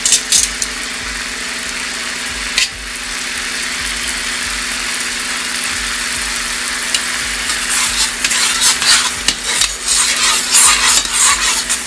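Butter, wine and lemon sauce bubbling and sizzling hard in a frying pan as it reduces. A metal spoon scrapes and clinks against the pan as the sauce is stirred: briefly at the start and once near three seconds in, then again and again through the last few seconds.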